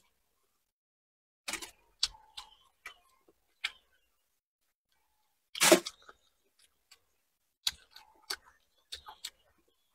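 Close-miked chewing of fried shrimp and fish: scattered crisp crunches and mouth clicks, with one louder, longer crunch a little past halfway.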